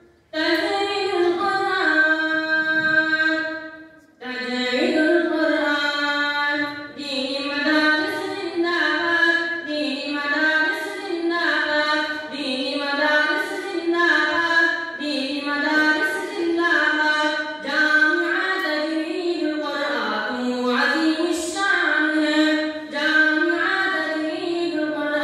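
A boy singing the madrasa's tarana (school anthem) solo without instruments, a melodic line with long held notes and a short break about four seconds in.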